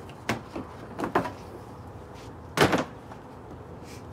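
Stacked Ridgid plastic tool boxes on a plywood slide-out tray being pushed back into a pickup bed, knocking and clunking: two light knocks at first, a double knock about a second in, and the loudest clatter about two and a half seconds in.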